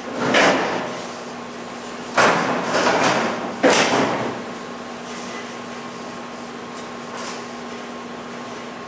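A loose sheet-metal deck filler panel being slid and pressed into place on a 1968 Camaro's rear body by hand: a rasping scrape near the start, then a sharp metallic clunk followed by more scraping about two seconds in, and a second clunk with a brief ring just before four seconds. A steady faint hum runs underneath.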